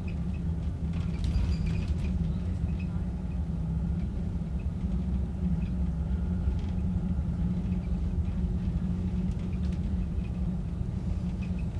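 Double-decker bus cruising on a highway, heard from inside the passenger cabin: a steady low engine and road rumble, with a few faint clicks about a second in.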